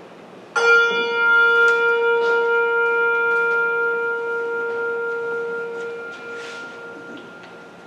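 A hand bell struck once, ringing out and slowly dying away over several seconds. It is a single memorial toll after a departed member's name is read.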